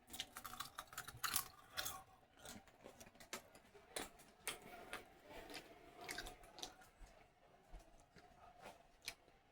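Someone chewing popcorn: faint, irregular crisp crunches, several a second at times.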